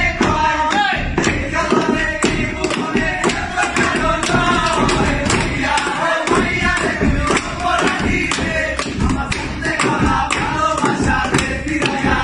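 A group of men singing together while beating time by knocking cricket bats on wooden benches, the knocks giving a steady beat under the song.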